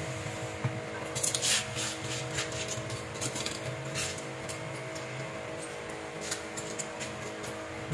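Washing up at a stainless-steel sink: water splashing and plastic bags and a plastic bottle being handled, giving scattered short splashy, crinkly bursts from about a second in, over a steady low hum.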